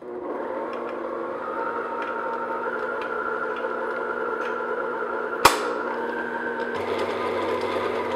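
Electric stand mixer running on low speed, its flat paddle mixing flour into a butter batter in a glass bowl: a steady motor hum with several steady tones. A single sharp knock about five and a half seconds in.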